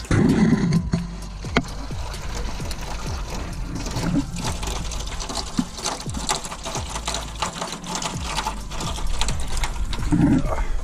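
Engine coolant draining from a Nissan 350Z's disconnected lower radiator hose in a thin steady stream, pattering and splashing into an aluminium foil drain pan. There is a louder bump right at the start.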